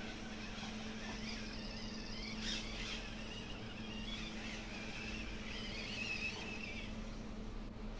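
Small brushed electric motor and gears of a 1/24-scale Axial SCX24 RC crawler whining, the pitch wavering up and down as the throttle changes while it climbs, over a steady low hum.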